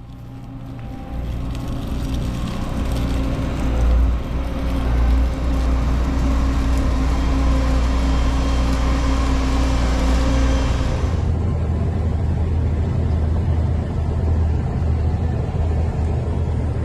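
Vehicle engine running steadily with a low rumble and a pitched hum. About two-thirds of the way through, the sound changes abruptly to a duller, muffled rumble.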